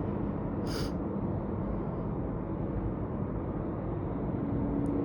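Airbus A350-900 jet on landing approach: a steady low rumble from its Rolls-Royce Trent XWB engines, with a faint hum that rises a little in pitch near the end.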